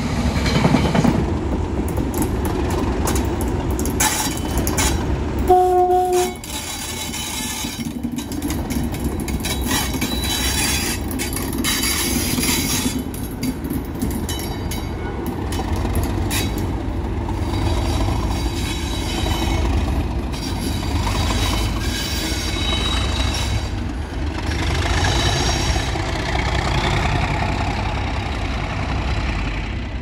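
Freight wagons rumbling past, with a short single-note train horn blast about five and a half seconds in. Then a British Rail Class 37 diesel locomotive's English Electric engine running as it passes.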